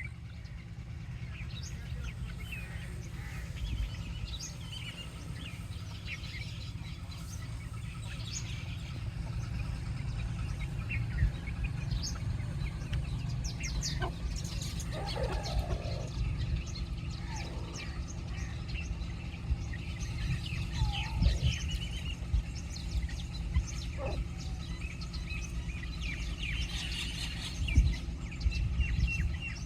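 Baby chicks chirping: many short, high peeps overlapping throughout, with a few lower calls in the middle and a steady low rumble underneath.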